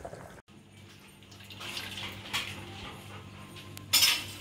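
Stainless steel kitchenware handled on a stone countertop, with a sharp metallic clank about four seconds in, over a low steady hum.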